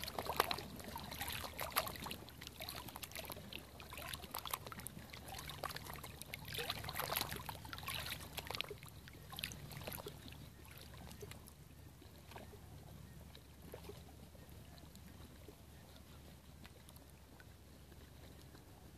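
Small ripples lapping and splashing against shoreline rocks, busy for the first half and thinning to a soft, sparse wash after about ten seconds.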